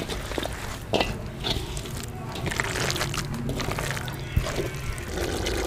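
Hand mixing a thick gram-flour pakora batter full of cut potato, spinach and onion in a metal bowl: irregular wet squelching and sloshing, with a few sharper clicks.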